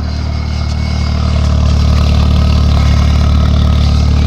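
Honda Civic's 1.8-litre R18 four-cylinder engine idling through a freshly fitted DNA Motoring catback exhaust with the silencer insert in: a steady low exhaust drone. It grows louder over the first two seconds, then holds steady.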